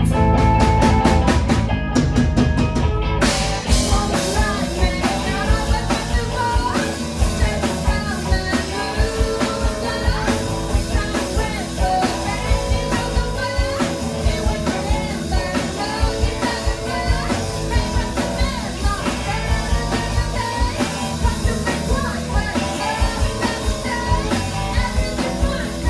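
A live rock band playing loud, with a drum kit keeping a steady beat under electric guitar and singing. It starts with a fast drum roll in the first few seconds.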